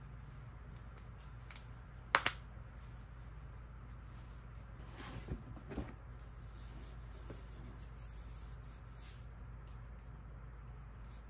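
Packaging being handled over a steady low room hum: a sharp tap about two seconds in, then a few soft knocks and scrapes around five to six seconds.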